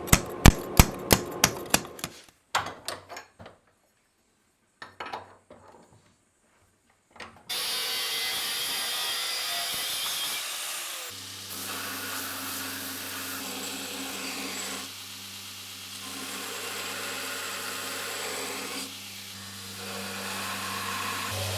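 Hammer blows on hot steel, about three a second, then a few scattered strikes. From about seven seconds in, a power grinder runs steadily, grinding a steel sword guard to shape, with a low motor hum joining about eleven seconds in.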